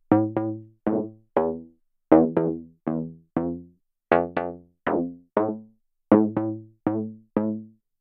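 Serum software-synth pluck chords playing a rhythmic pattern over low bass notes, about two short notes a second. Each note starts sharply and quickly loses its brightness. Oscillator B is frequency-modulated by oscillator A, an FM tweak that the producer doesn't like.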